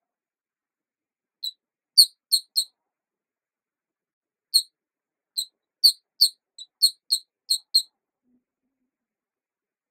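A series of short, high-pitched squeaks, about a dozen in uneven groups, with a quick run of them in the second half and silence between.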